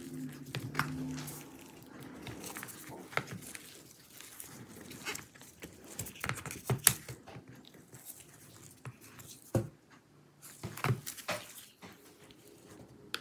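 Irregular light clicks and taps of a plastic pry tool and gloved hands working the battery and parts of an opened laptop chassis, with a few sharper clicks about seven seconds in and again near the end.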